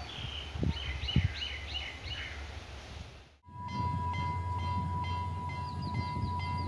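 Diesel passenger train running along the line, a low rumble with birds chirping over it. About halfway the sound switches to a louder, steady rumble with a constant high whine.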